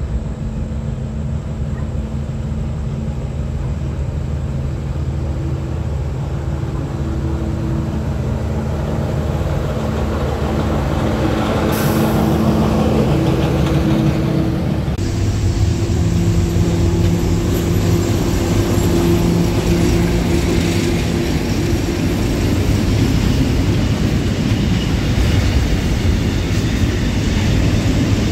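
Diesel locomotive hauling a freight train approaches and passes, its engine drone with steady tones growing louder. About halfway through the sound changes abruptly to a line of freight boxcars rolling past on the rails with a steady rumble.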